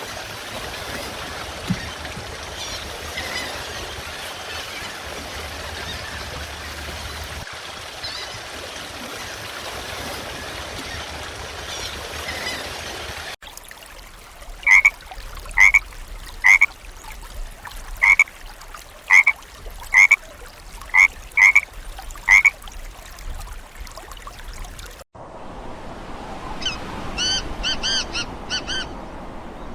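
Animal sounds in three parts. First comes a steady hiss with faint calls in it. About 13 seconds in, a run of about ten short, loud, same-pitched calls follows. From about 25 seconds there are quick bursts of higher, rapid calls.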